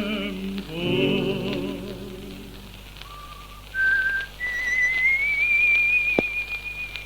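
Old 78 rpm record: a male tango singer holds the last word of a line with vibrato, then someone whistles a single clear tone that steps up through three notes and glides up to a long held high note. A click about six seconds in and steady surface hiss come from the shellac disc.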